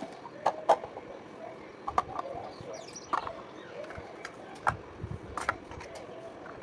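Irregular sharp clicks and taps of objects being handled, coming in small clusters, with faint wavering chirpy sounds in between.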